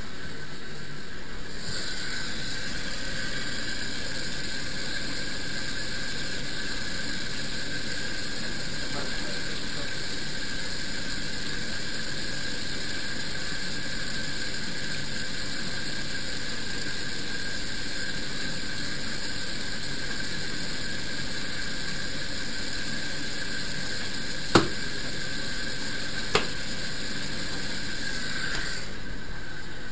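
Washing machine running with a steady high whine that sets in about a second and a half in and stops just before the end, over a constant lower mechanical noise. Two sharp clicks come near the end.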